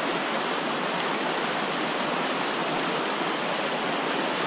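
Shallow, rocky mountain stream rushing over small rapids, a steady, even rush of water.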